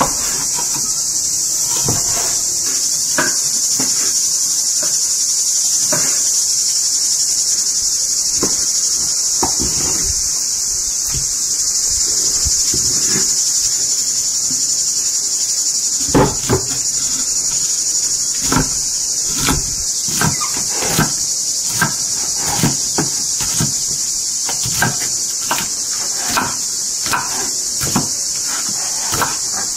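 Kitchen knife chopping on a wooden cutting board, first through liver and then through green beans, the knocks coming faster in the second half. A steady, high-pitched insect chorus runs under it.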